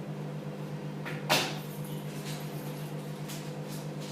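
A single sharp knock about a second in, then a few faint taps, over a steady low hum.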